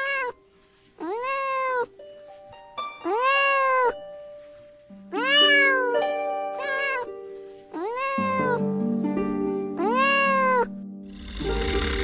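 Cat meowing repeatedly: about six drawn-out meows, each rising and then falling in pitch, over soft background music.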